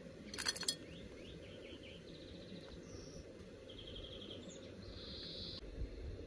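Small birds chirping, a series of short quick chirps and rapid trills, over steady low background noise; a brief sharp clatter sounds about half a second in.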